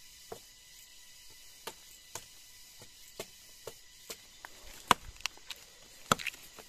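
Machete blade chopping into a rotten fallen log: a series of sharp, uneven strikes, roughly two a second, with the two hardest blows near the end.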